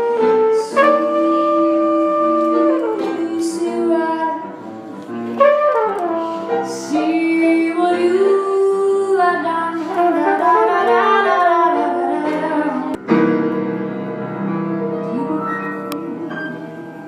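Live jazz band playing, a saxophone-like melody line of long held and sliding notes over the accompaniment. About thirteen seconds in the sound cuts abruptly to a sustained chord that slowly fades.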